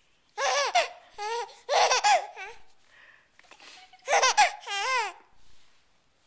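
A baby laughing in short, high-pitched bursts, in two bouts: the first starting about half a second in, the second about four seconds in.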